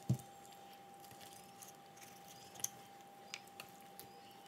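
Raw chicken being handled and cut with a knife on a cutting board: a soft thud right at the start as a piece is set down, then a few faint, scattered clicks of the blade working through skin and joints, over a faint steady hum.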